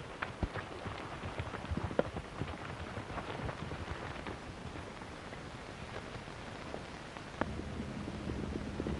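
Several horses galloping away, an irregular clatter of hoofbeats over a steady hiss. A low hum comes in about seven and a half seconds in.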